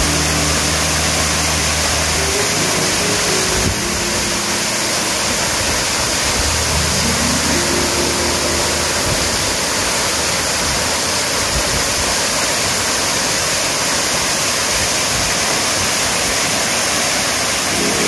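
Waterfall falling onto rock and a plunge pool, heard up close: a steady, loud rush of water.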